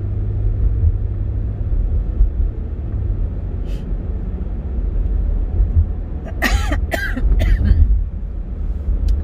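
Steady low rumble of a car's road and engine noise inside the cabin while driving. A person coughs a few times, about six and a half seconds in.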